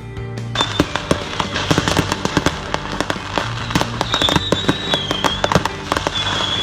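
Dense crackling with many sharp pops, over background music with sustained low notes; a thin high whistle comes in twice in the second half.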